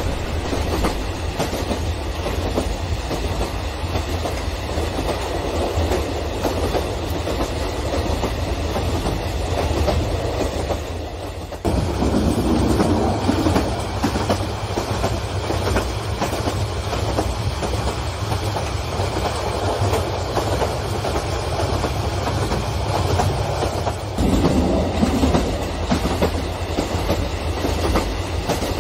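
Large-scale model passenger train cars rolling past on the track: a steady rumble with wheels clacking over the rail joints. The sound dips briefly about eleven seconds in, then resumes a little louder.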